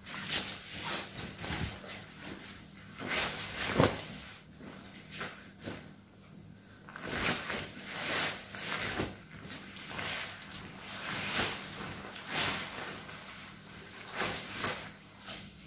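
Plastic sauna suit and a jacket rustling and crinkling in irregular bursts as the jacket is pulled on over the suit.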